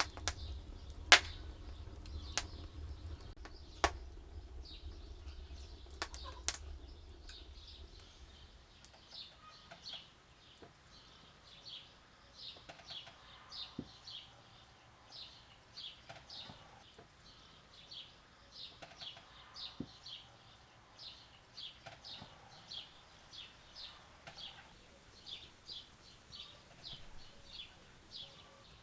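A few sharp clicks and knocks over a low hum, then a bird calling over and over with short, high chirps that fall in pitch, about one or two a second.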